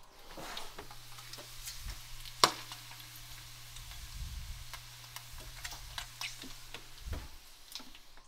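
Bacon sizzling in an oven, with fat crackling and popping in scattered small clicks over a steady low hum. There is one sharp click about two and a half seconds in.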